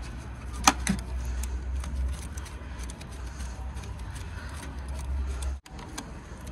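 Small metallic clicks of a wrench tightening a car battery's positive terminal clamp, with one sharper click early on, over a steady low rumble that cuts off abruptly about five and a half seconds in.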